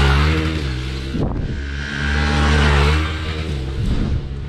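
Off-road motorcycle engine revving hard as the bike passes on a dirt slope, in two surges about two seconds apart, with a short lull between them. The pitch drops after each surge as the bike goes by.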